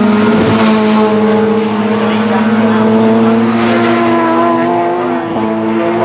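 1990s Super Touring race cars' high-revving two-litre four-cylinder engines at full throttle as several cars race past and away. The engine note breaks briefly about five seconds in, like a gear change.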